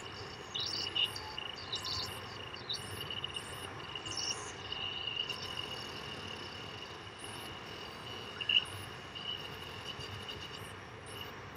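Electronic sound generated by the PlantMax plant-music interface from a plant's bioelectrical readings: a steady high tone with short, irregular chirps above it, insect-like, and one louder blip about eight and a half seconds in.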